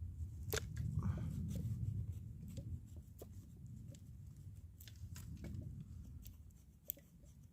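Knife scraping a stick of fatwood into shavings: irregular sharp scrapes and clicks over a low rumble, heaviest about a second in.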